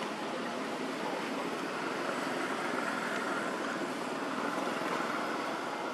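Steady rushing outdoor background noise, swelling slightly midway, with no distinct calls or knocks.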